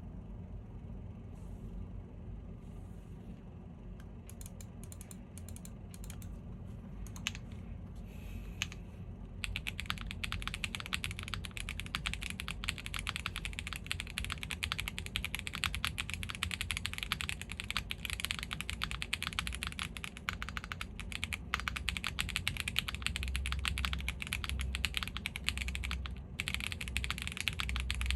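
Typing on an Owlabs Jelly Evolv gasket-mount custom mechanical keyboard with a polypropylene plate, stock WPJ Diamond Avalon switches and GMK Striker keycaps. A few scattered keystrokes at first, then fast continuous typing from about nine seconds in, with a brief pause near the end.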